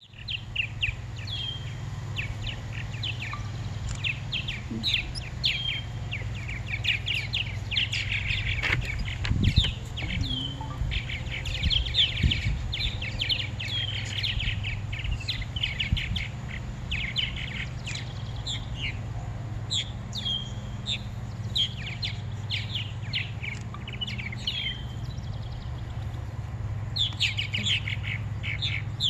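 Purple martins chirping and chattering, many short calls and down-slurred notes in quick succession, over a steady low hum. A couple of handling knocks stand out about nine seconds in.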